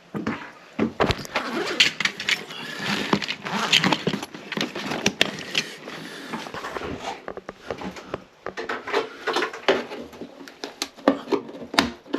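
Irregular clicks, knocks and scrapes of hand tools and metal and plastic parts being handled while a bathroom exhaust fan is taken apart.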